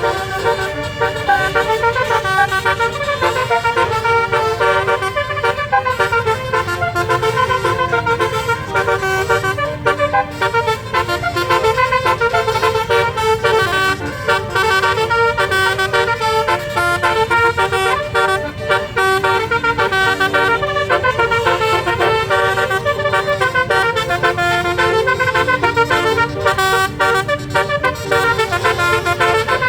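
Multi-tone 'telolet basuri' bus horn (12-note) playing a continuous melody of quick stepped notes over a steady low rumble.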